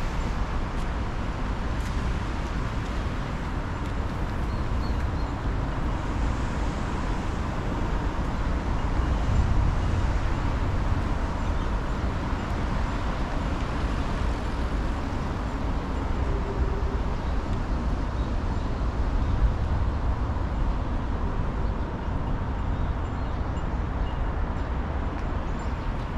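Steady outdoor city background noise dominated by a low rumble, without any distinct events, and with a faint steady tone running underneath.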